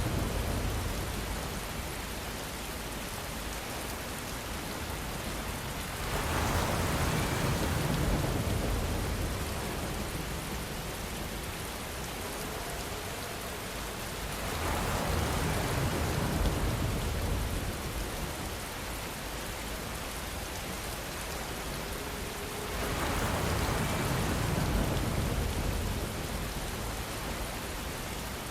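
Steady rainfall, an even hiss of drops that swells louder and deeper three times, about every eight seconds.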